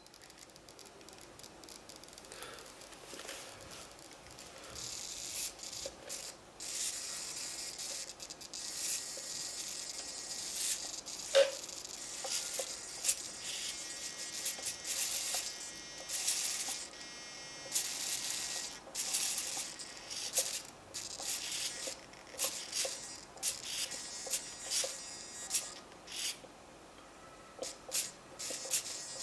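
Electric motor of an RC Storm-450 running at idle, making a strange, uneven electric buzzing and whine that comes in fluttering bursts and that the owner finds suspicious. The sound builds over the first few seconds, and a single sharp click comes about eleven seconds in.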